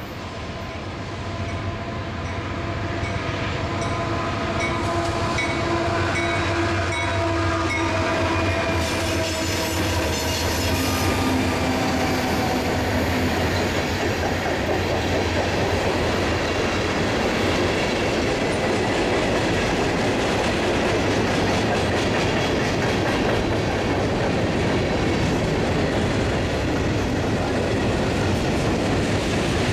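Freight train passing close by. Its diesel locomotive approaches with the air horn sounding steadily for about the first ten seconds over the growing engine rumble. A steady loud rumble and clatter of freight car wheels on the rail joints follows as the tank cars and hoppers roll past.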